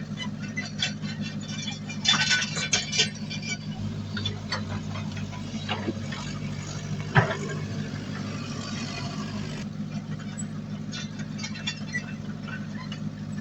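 Diesel engine of heavy earthmoving equipment running steadily, with repeated metallic clanks and rattles, a burst of them about two seconds in and one sharp knock about seven seconds in.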